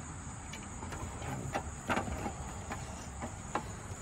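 A few scattered clicks and light knocks of a hand tool and hard plastic as the bolts are undone and the plastic engine cover of an old Toro 6.5 hp push mower is worked loose.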